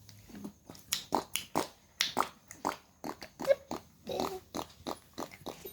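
A baby's short, irregular snuffling and snorting noises with a few small grunts, made close to the microphone.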